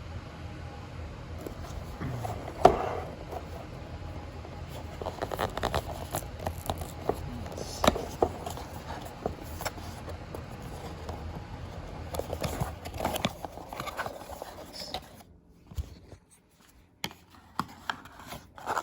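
Hands handling the GoPro's cardboard and plastic packaging: scattered clicks, taps and scrapes, with one sharp knock about three seconds in. A low background hum stops about three seconds before the end.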